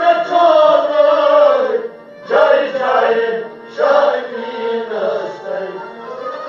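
A Kashmiri Sufi kalam being sung in long, bending phrases over a sustained accompaniment. Each phrase starts loud and trails off, and new phrases begin about two and a half and about four seconds in.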